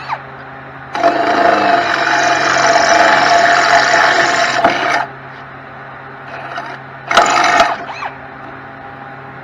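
Handheld power tool running steadily for about four seconds with a strong held whine, then a second short burst about seven seconds in.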